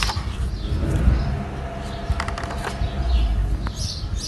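Pages of a hardcover picture book being turned and handled, a few short papery clicks and rustles over a low, steady outdoor rumble.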